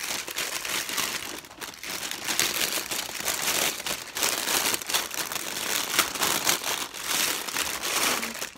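Clear cellophane wrap around an Easter basket crinkling in a dense crackle as it is handled, lifted and pulled at.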